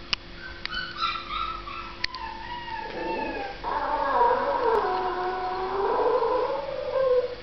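Toy fox terrier howling: higher, shorter whining notes first, then one long wavering howl from about three and a half seconds in that dips and rises in pitch and breaks off near the end. A few sharp clicks sound in the first two seconds.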